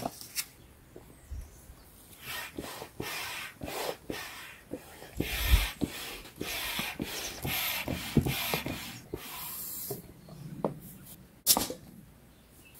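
Hand stand pump being worked stroke after stroke to inflate a chamber of a drop-stitch inflatable kayak, each stroke a rasping rush of air, with a sharp click near the end.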